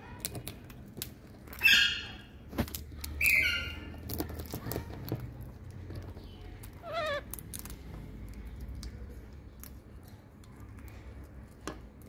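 Rose-ringed parakeets cracking peanut shells with their beaks: a scatter of sharp clicks and crunches. Two loud squawks come in the first four seconds, and a short warbling call about seven seconds in.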